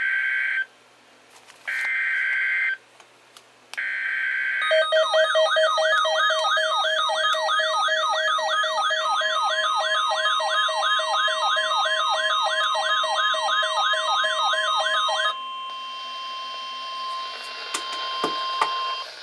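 Emergency Alert System broadcast on NOAA Weather Radio opening a severe thunderstorm warning. It begins with three short screeching bursts of SAME digital header data. Next comes a warbling siren-like alert tone, sweeping about three times a second for about ten seconds, joined partway by the steady 1050 Hz weather radio warning tone, which holds on over radio static until just before the end.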